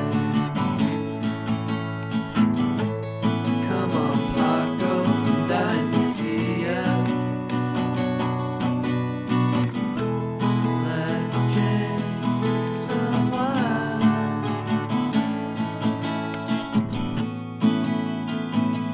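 Acoustic guitar music, strummed and picked without a break.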